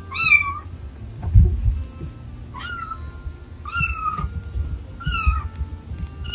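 A kitten meowing: four short, high-pitched calls about a second apart, each rising and then falling in pitch, with a fifth starting at the very end. A soft low thump about a second and a half in, with lighter ones between the calls.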